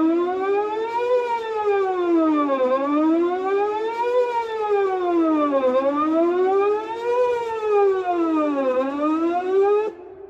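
Whelen 2809 electronic outdoor warning siren sounding a wail test tone, its pitch rising and falling smoothly about every three seconds. It cuts off abruptly near the end.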